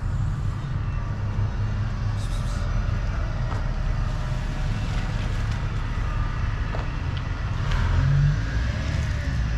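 Steady low rumble of nearby road traffic.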